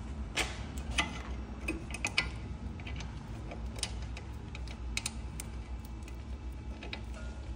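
Irregular light metallic clicks and clinks of hand tools and parts being handled during strut work, over a low steady hum.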